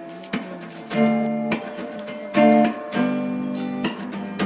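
Background music: acoustic guitar strumming sustained chords, with a fresh strum every second or so.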